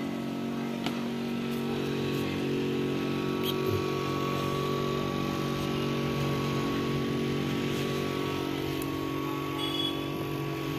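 A steady motor hum with an even drone that holds the same pitch throughout, and a few light clicks.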